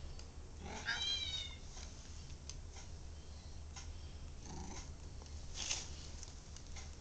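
A domestic cat gives one short, high-pitched meow about a second in, its pitch dropping at the end. A few seconds later come softer rustling sounds and a brief hissy burst.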